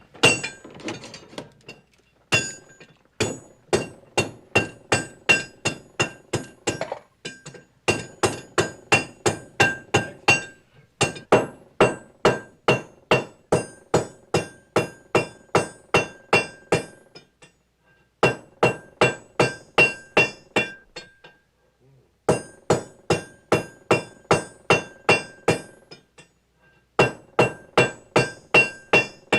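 Construction hammering: a steady run of hammer blows, about three to four a second, each with a bright metallic ring. The blows come in runs of a few seconds broken by short pauses.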